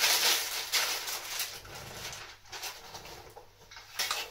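Plastic mailing bag crinkling and rustling as a box is pulled out of it. The rustle is loudest in the first second or so, then thins to lighter handling noise, with a short rustle near the end.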